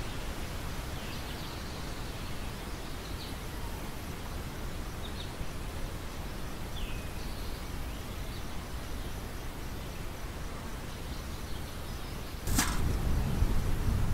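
Outdoor field ambience: a steady low rumble of wind on the microphone, with a few short, high bird chirps scattered through the first half. Near the end a sharp click comes, and the rumble is suddenly louder from there on.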